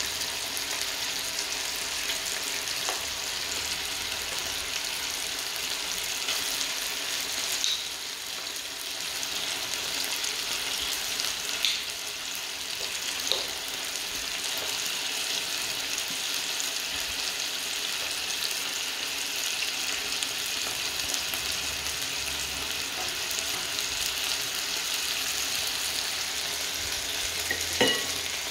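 Chicken wings sizzling steadily in hot oil in a nonstick frying pan, with a few short clicks of the silicone tongs against the pan as the pieces are turned.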